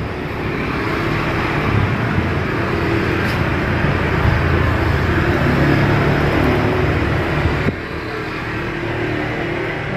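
Road traffic running past with a vehicle engine's low rumble. It swells over the first several seconds, then drops off sharply about three-quarters of the way through.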